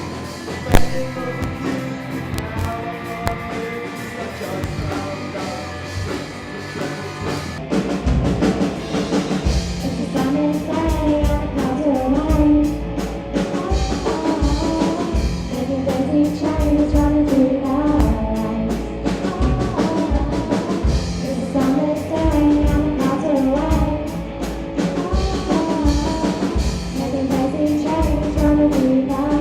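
Young rock band playing live: a vocal melody over guitar, with a sharp click just under a second in and the drum kit coming in with a steady beat at about eight seconds.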